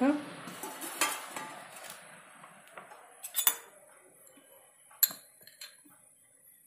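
A steel spoon clinking and tapping against glass bowls a few separate times, with a close pair near the middle, as spice mix is spooned out onto cooked gooseberry segments.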